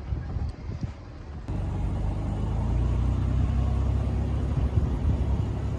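Car driving: a steady low engine and road rumble that steps up sharply about one and a half seconds in and then holds.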